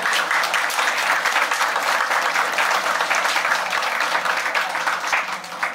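A small audience applauding, a steady patter of many hands clapping that dies away near the end.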